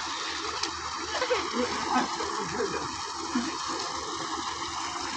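Tubewell outlet pipe gushing a steady jet of water into a concrete irrigation tank, with splashing from a person wading in it.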